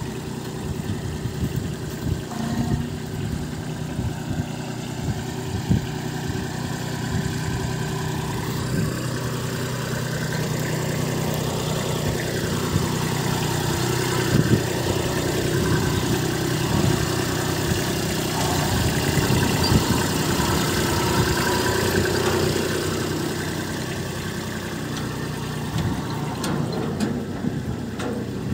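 Small Kubota compact tractor's diesel engine running steadily as it drives, towing a trailer. Its pitch wavers up and down a little, and it grows somewhat louder around the middle as it comes close.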